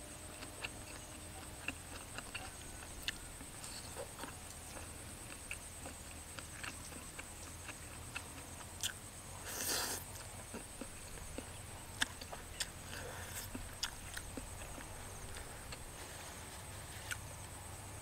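Close-up eating sounds: soft chewing with scattered small wet clicks and ticks, and a short slurp of noodles about ten seconds in.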